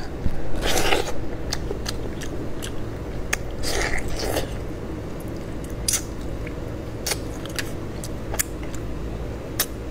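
A man biting into and chewing a braised chicken head, with wet mouth sounds and many small crunching clicks. There are two short noisy bursts, one about a second in and another around four seconds in.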